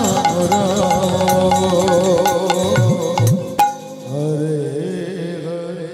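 Devotional kirtan music closing: a khol (Bengali barrel drum) and hand cymbals play quick strokes over held keyboard and vocal notes, hit a final accent about three and a half seconds in, and stop, leaving the held notes to fade out.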